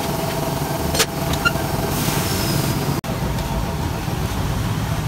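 Steady machine hum at a tire changer as a tyre is levered off an alloy wheel with a tire iron, with a sharp metal clank about a second in. About three seconds in it cuts abruptly to a low rumble of street traffic.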